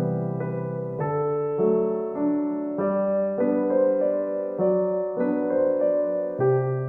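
Slow, gentle piano music: sustained chords and notes changing about once or twice a second in a calm, even rhythm.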